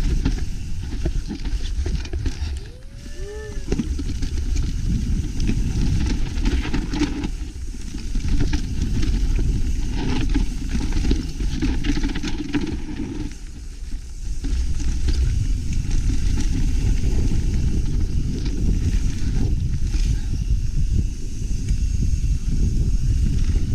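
Mountain bike ridden over a rocky trail, heard from a mounted action camera. Wind rushes over the microphone while the bike rattles and knocks over rock, with one short squeak about three seconds in.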